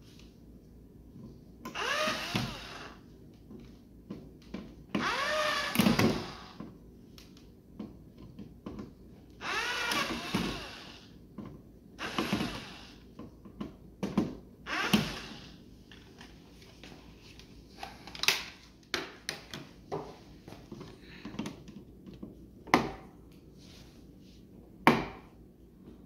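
18-volt cordless drill/driver running in several short bursts as it drives the mounting screws of a wall light switch into the electrical box, the motor's pitch sliding up and down as it speeds up and slows. Sharp clicks and knocks fall between the bursts and continue after them.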